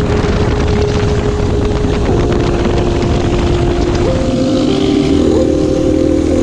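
Dirt bike engine running at a steady cruise under heavy low rumble; its note drops about two seconds in and rises again about four seconds in.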